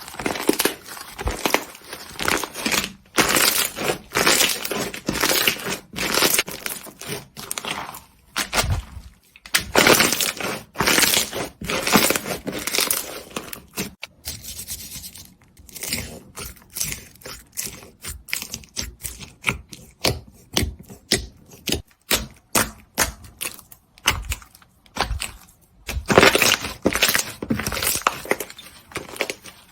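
Slime being squeezed, pressed and poked by hand, with a dense run of irregular crackles and pops that thin out for a few seconds midway and bunch up again near the end.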